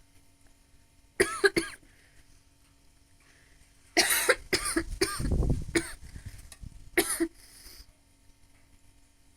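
A woman coughing while smoking, the smoke catching in her throat: a quick pair of coughs about a second in, a longer fit of coughs from about four to six seconds in, then one more cough near seven seconds, with breaths in between.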